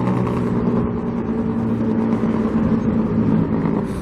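Freeway traffic: a steady rush of passing vehicles with the low drone of an engine.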